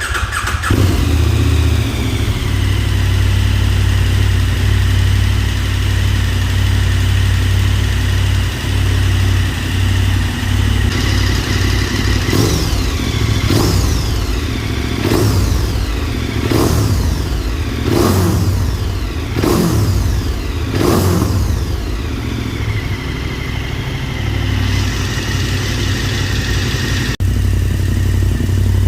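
KTM 1290 Super Adventure S V-twin engine running through an Arrow Sonora titanium exhaust with the dB killer fitted. It idles, then is revved in about seven quick throttle blips, each rising and falling, about one every second and a half, and settles back to idle.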